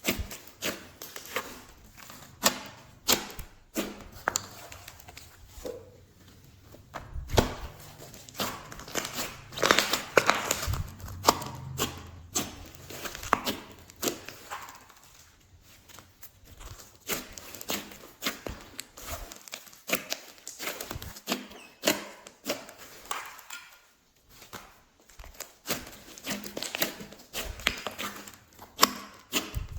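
Glossy slime being kneaded, stretched and pressed by hand, giving an irregular run of sticky clicks, pops and crackles that grows busier for a few seconds a third of the way in.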